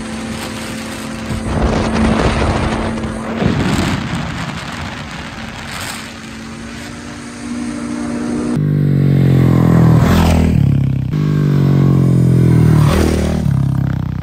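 Ski-Doo snowmobile engine running at a steady pitch as it crosses deep snow, with bursts of rushing noise. About two-thirds in, this cuts to a louder dirt bike (studded-tyre ice bike) engine revving up and down twice.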